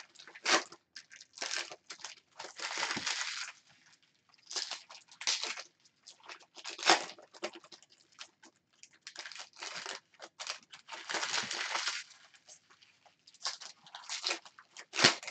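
Foil wrappers of Donruss Optic baseball card packs being torn open and crinkled by hand, in irregular crackling bursts with short pauses between them.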